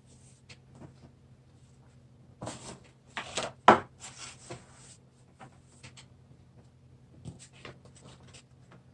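Scratchy rustling and scraping of painting supplies being handled on a tabletop, with one sharp knock about three and a half seconds in and a few light clicks near the end.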